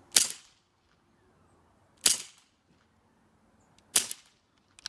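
CO2-powered BB gun firing three shots, about two seconds apart, each a sharp pop with a short hissing tail, then a faint click near the end.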